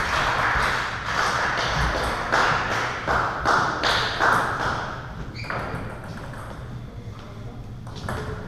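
Scattered sharp taps of table tennis balls on bats, tables and the wooden floor, dense over the first half and sparser after about five seconds, in a reverberant hall.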